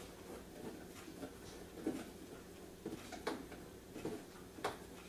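A handful of faint clicks and light knocks, spaced a second or so apart, from hands working inside a particleboard dresser drawer opening while fitting small plastic drawer-stop screws.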